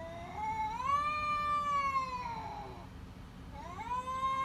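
A domestic cat giving two long, drawn-out meows, each rising and then falling in pitch; the second begins near the end.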